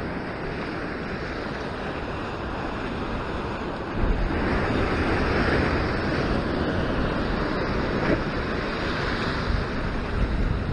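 Ocean surf breaking and washing over a rock ledge, with wind buffeting the microphone; the sound grows louder and heavier about four seconds in as a bigger surge comes through.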